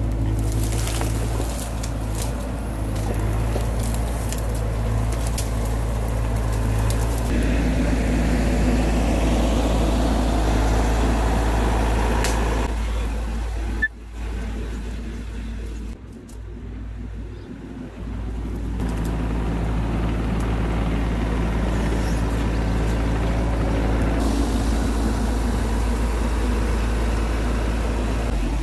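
Bobcat E42 mini excavator's diesel engine running with a steady low drone. Just before halfway there is a sharp click, and the drone drops quieter for about five seconds before coming back up to full level.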